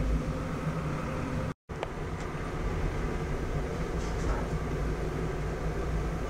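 Room tone of a quiet restaurant dining room: a steady low hum with a few faint clicks. It drops out briefly about one and a half seconds in.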